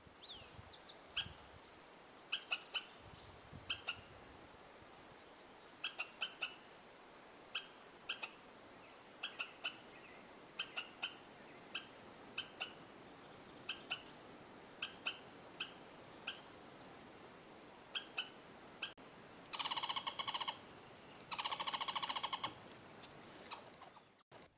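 A squirrel's alarm calls: sharp, short chips, often in quick pairs or threes, at about one a second. Near the end come two rapid, buzzy chattering trills, the loudest part.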